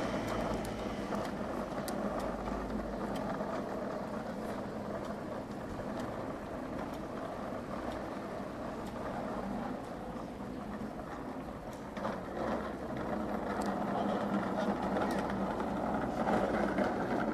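Small push-along garden machine on wheels rolled over asphalt, a steady rolling, rattling noise.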